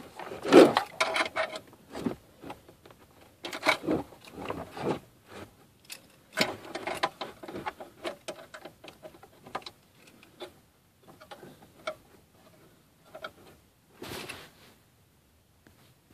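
Irregular bursts of plastic clicking, clattering and rustling as hands work the release tabs and connectors of a 2002 Ford Taurus factory radio loose from the dash. The loudest clatter comes about half a second in.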